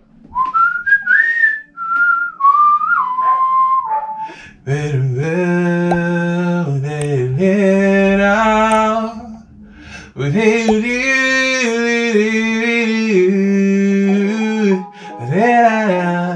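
A melody is whistled for about four seconds. Then a man's voice sings long held notes into a studio microphone, with a short break about ten seconds in and another near the end.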